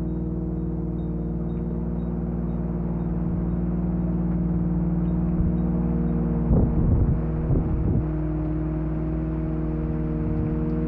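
Ambient modular-synthesizer drone: a steady low chord of held tones over a muffled rain-like hiss from a processed rain recording. A short cluster of low thumps comes about six and a half seconds in, and another just before eight seconds.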